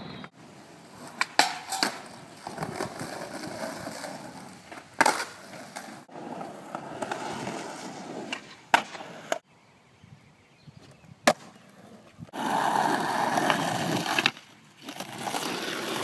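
Skateboard wheels rolling on concrete, broken by several sharp wooden clacks of the board being popped and landing, across a few short clips.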